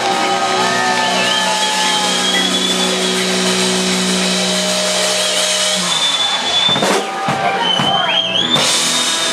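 Live rock band playing loud: held notes with a wavering high tone above them. A steady low note stops just before six seconds in, followed by a run of drum and cymbal hits.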